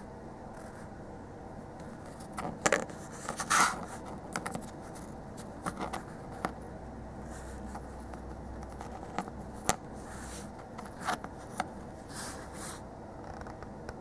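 Small plastic spur gears handled by fingers on a cutting mat: scattered clicks, taps and scrapes, the loudest cluster a few seconds in, over a steady low room hiss.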